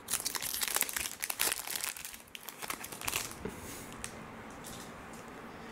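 Plastic wrapper of a trading-card pack being torn open and crinkled. A dense crackling runs for about three seconds, then fades to light rustling.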